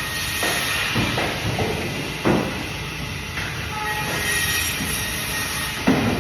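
Bandsaw running steadily while cutting fish, with a faint high whine and a knock now and then, the strongest about two seconds in and near the end.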